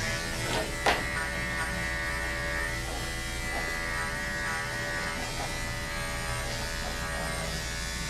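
Andis electric dog-grooming clipper running steadily, its motor making an even buzz as it shaves through the dog's coat. There is one sharp click about a second in.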